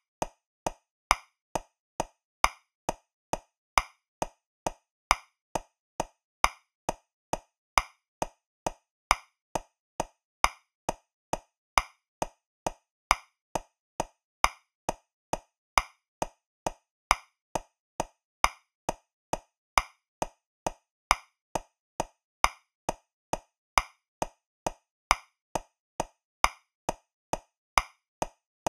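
Metronome clicking at 135 beats per minute in 3/4 time, with a louder accented click on the first beat of every three.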